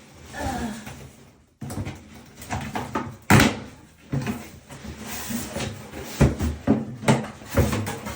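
A heavy stand mixer being pulled out of its cardboard box: irregular knocks, bumps and rustling of cardboard and packing, with the loudest thump about three seconds in.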